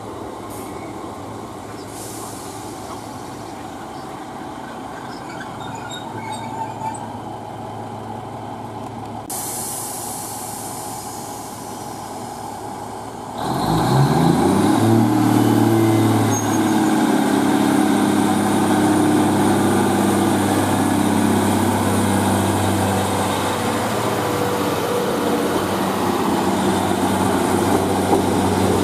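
Class 153 diesel multiple unit's underfloor Cummins diesel engine ticking over at the platform, then opening up sharply about halfway through and running loud and steady as the unit pulls away.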